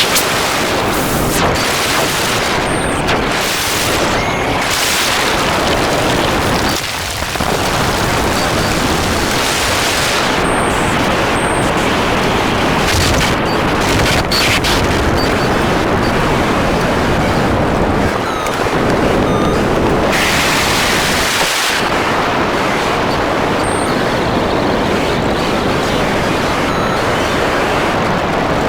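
Harsh noise music: a dense, loud wall of distorted static and roar that covers the whole range from deep rumble to hiss, shifting abruptly in texture every few seconds with brief dips and sudden bright bursts.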